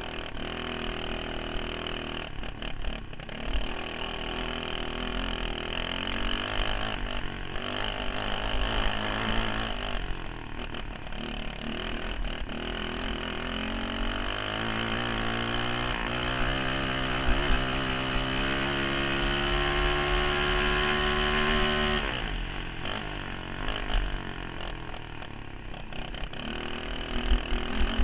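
Dirt kart engine heard from on board, its revs rising and falling through the corners. About halfway in it winds up in one long climb in pitch, then drops sharply a few seconds before the end as the throttle comes off for a corner.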